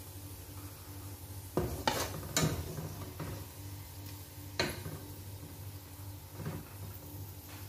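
A metal spoon knocking and scraping against a pan of hot oil as fried onions are lifted out: three knocks close together about one and a half to two and a half seconds in, then single knocks twice more. A low steady hum runs underneath.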